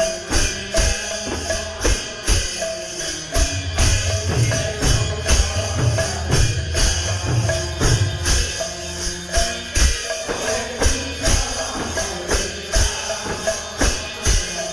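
Instrumental devotional kirtan music: a steady, driving beat of hand-drum strokes with jingling metal percussion on every beat and a recurring held tone from a melody instrument.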